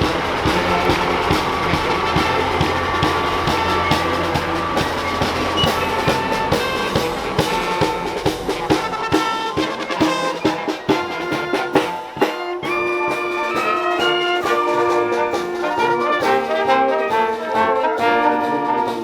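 Brass band playing a tune, trumpets and trombones over drums. About two-thirds of the way through the sound clears into distinct held brass notes.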